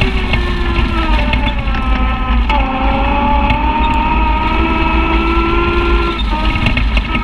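Side-by-side UTV engine running under way on a dirt trail, with a steady low rumble from wind and tyres. Its pitch steps down about two and a half seconds in, climbs slowly, then drops again near the end.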